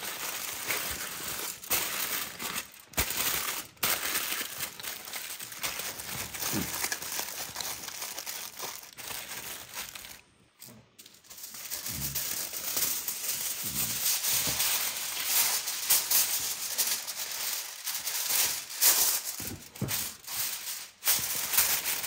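Aluminium foil crinkling and crackling as it is folded and pressed by hand into a tight parcel around a fish. After a short pause about halfway, a fresh sheet of foil crackles as it is pulled from the roll and smoothed flat.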